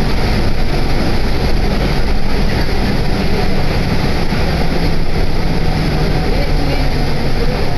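Steady running noise inside a Yutorito Line guideway bus under way: engine and tyre rumble, strongest at the low end.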